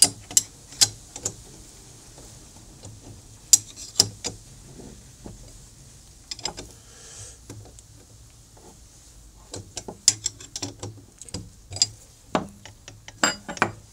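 Steel combination wrench clinking against a bolt and metal fittings while a fastener is tightened, irregular sharp clicks and knocks, several of them loud.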